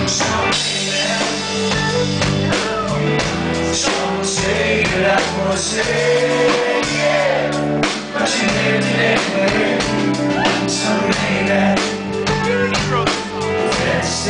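Rock band playing live: a male singer over electric guitar, bass guitar and drums, with steady drum hits.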